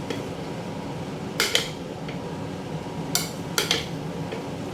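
A cooking spoon clanking and scraping against a pot of fried rice as it is stirred: a pair of sharp strikes about a second and a half in and another pair just past three seconds, over a steady low hum.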